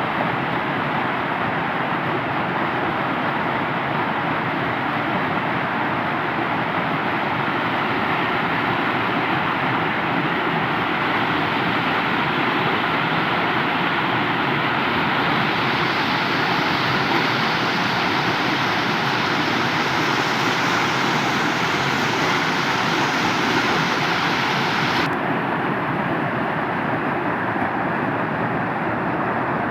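Waterfall's falling water making a loud, steady rushing noise. About 25 s in, the sound suddenly turns duller as its hissing upper range drops away.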